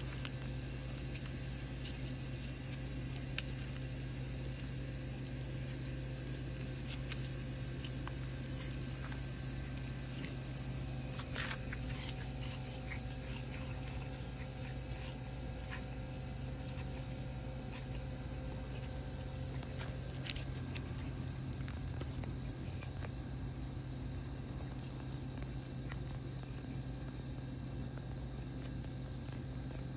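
Steady high-pitched chorus of insects chirring, with a few faint clicks over it.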